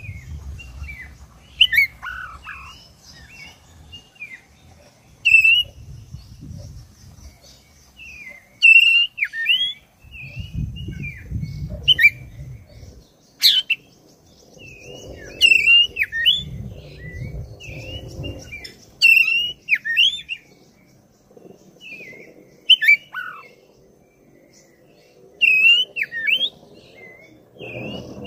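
Black-breasted oriental magpie-robin (kacer dada hitam) singing: loud, sharp whistled notes and quick sweeping chirps in short bursts, separated by brief pauses.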